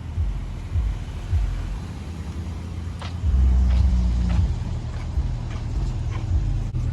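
Car engine running with a low, steady rumble. It grows louder for about a second and a half starting about three seconds in, then settles back.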